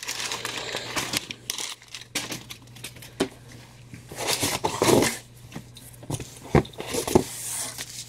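Packing paper crinkling and rustling as it is pulled out of a cardboard shipping box, in irregular handfuls, with a couple of sharp taps near the end.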